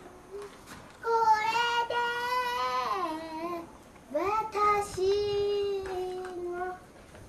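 Dog howling: two long drawn-out howls, each rising at the start, held with a slight waver, then falling, the first about a second in, the second about four seconds in.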